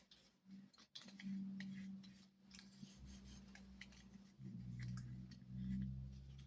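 Faint cloth wiping over pens and a stapler, with light clicks and taps as the items are handled. A low steady hum runs underneath and grows louder about halfway through.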